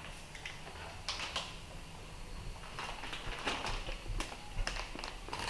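Plastic snack packet crinkling as it is handled, a run of short crackles about a second in and again over a couple of seconds near the end.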